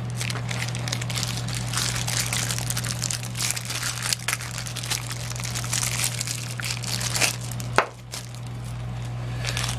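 Clear plastic parts bag crinkling and rustling as gloved hands handle it and work the galvanized pipe coupling inside. A single sharp click comes near the end, and a steady low hum runs underneath.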